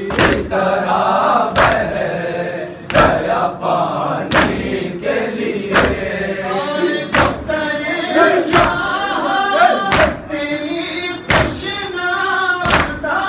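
A group of Shia mourners chanting a noha together while beating their chests in unison (matam), a sharp collective strike about every second and a half between the sung lines.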